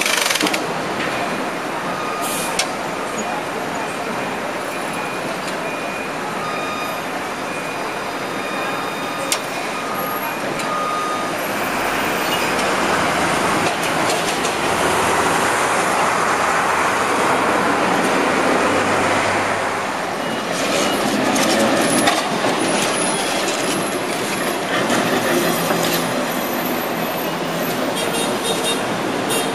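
A vintage Perley Thomas streetcar rolls slowly past amid street traffic: a steady rumble and rush that swells for several seconds in the middle, with faint thin steady squeals in the first half and a scattering of clicks and clanks later.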